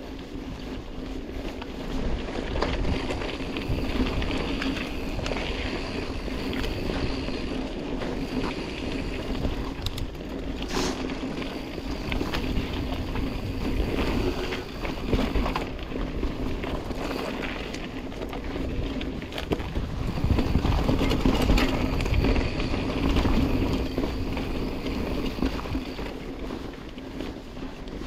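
Mountain bike riding a dirt singletrack: steady tyre and trail noise with many small knocks and rattles from the bike, and wind buffeting the microphone, louder for a few seconds past the middle.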